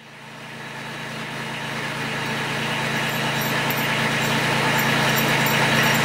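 A machine running steadily with an engine-like drone and a low hum, fading in and growing louder over the first few seconds, then holding steady.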